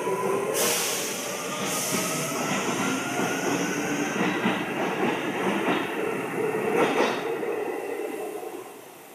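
Seibu 2000 series electric train running, heard from on board: steady wheel-on-rail rolling noise under a faint traction-motor whine that slowly rises in pitch, with two short hisses in the first two seconds. The sound drops away near the end.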